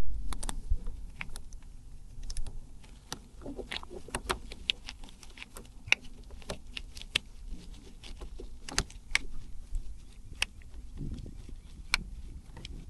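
Light metal clicks and clinks at irregular intervals, from a wrench and the battery terminal clamps as a car battery is being hooked up.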